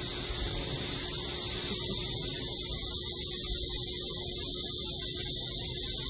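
Pond spray fountain: water jetting up and falling back into the pond as a steady hiss.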